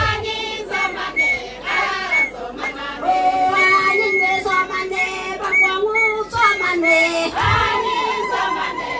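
A women's group singing together in chorus, several voices moving in parallel, with a couple of brief low thuds.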